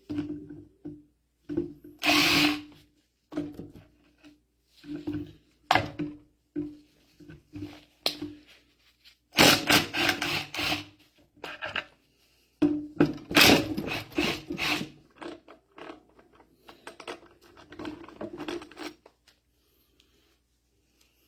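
Electric drill with a T30 Torx bit running in short bursts, starting and stopping over a dozen times as it backs screws out of a mini excavator's hydraulic control valve body, mixed with sharp metallic knocks and clatter of parts being handled.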